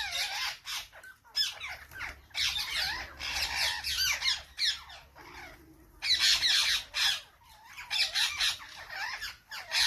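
Parrots squawking and chattering in rapid strings of harsh calls. The calls break off briefly a few times, with a quieter pause of about a second in the middle.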